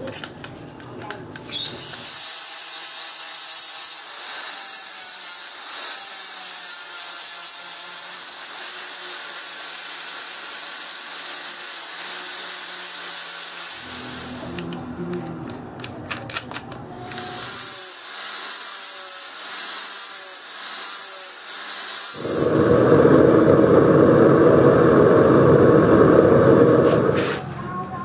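Angle grinder grinding a steel cleaver blade, a steady high-pitched grinding hiss that runs for long stretches with brief breaks. Near the end a louder rushing noise takes over for about five seconds.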